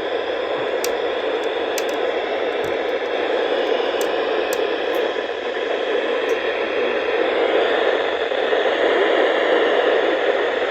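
Steady hiss of radio static, with a few faint clicks, where the broadcast warning voice has dropped out: the receiver has lost the signal.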